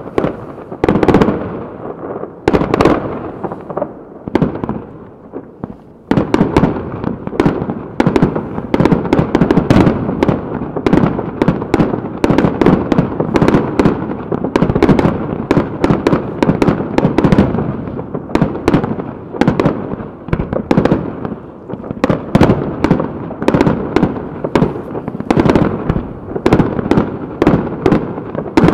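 Aerial firework shells bursting in quick succession, a steady barrage of sharp booms and crackles. There is a short lull a few seconds in, after which the bursts come almost without a break.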